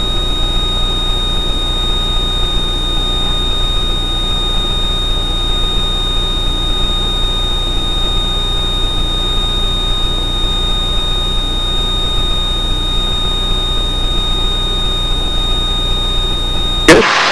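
Extra 300L's six-cylinder Lycoming engine and propeller droning steadily at climb power, about 2500 rpm, heard inside the cockpit through the headset audio, with a constant high-pitched electrical whine over it.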